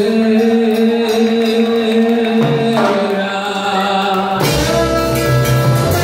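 Live salsa band playing, with a trombone and vocals. Long held notes over the first half, then the bass and full band come in strongly about four and a half seconds in.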